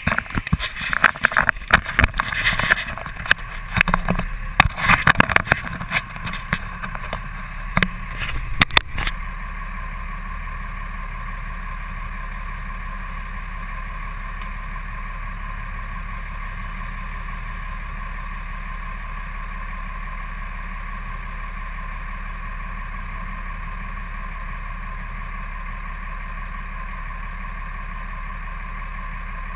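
Knocking and rubbing of a camera being handled and fixed in place for about the first nine seconds. Then a steady, even hum of an idling truck engine.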